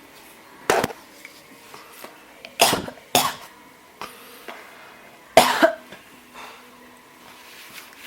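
A person coughing in short fits: a single cough about a second in, then two pairs of coughs a couple of seconds apart.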